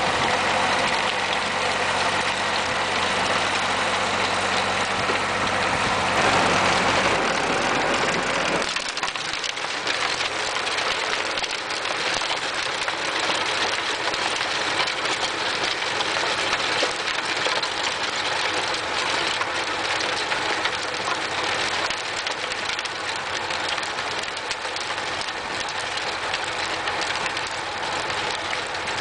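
Renault Super 5 tractor engine running steadily while driving a rotary tiller through the soil. About nine seconds in, the deep engine note drops away sharply and a higher, noisier sound carries on.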